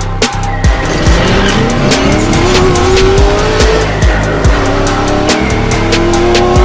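Background music with a steady beat, mixed with a car engine accelerating hard: its pitch climbs, falls back about four seconds in as if through a gear change, and climbs again.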